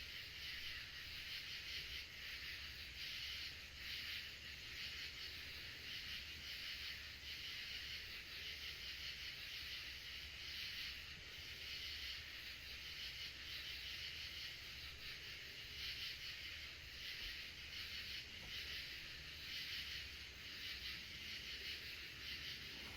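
Outdoor nature ambience dominated by a steady high-pitched chorus of insects that swells and fades slightly, over a low rumble.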